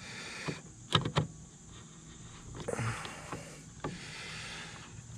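Hard plastic clicking and scraping as a reverse-light bulb socket is pushed back into a tail light housing, with two sharp clicks about a second in and another near the end.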